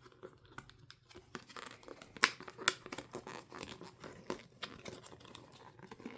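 Packaging being torn open and crinkled by hand around a photo frame, with scattered sharp clicks and rustles, the loudest a little past two seconds in.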